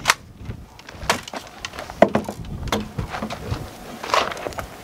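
Sharp mechanical clicks and clacks of a Turkish bullpup box-magazine shotgun being worked to clear a jam, with handling knocks as it is moved.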